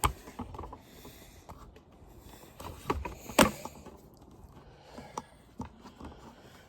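Scattered knocks and clunks of objects being picked up, moved and set down, with sharp knocks right at the start and about three and a half seconds in.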